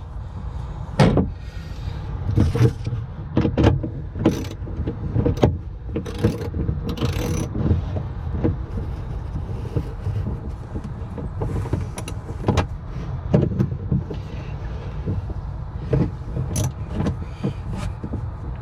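Short bursts from a small powered driver turning clamp nuts with a socket, among many sharp clicks and knocks of metal tools on the fittings.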